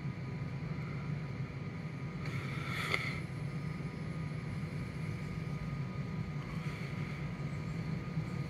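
A train at the trackside: a steady low rumble with faint steady whining tones, and a brief louder hiss about three seconds in.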